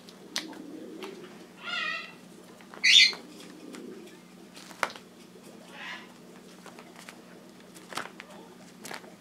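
A bird giving short calls: one about two seconds in, a louder, higher one about three seconds in, and a faint one near six seconds. Scattered sharp clicks come from a compass's metal ring knocking as a dove tugs it by the ring.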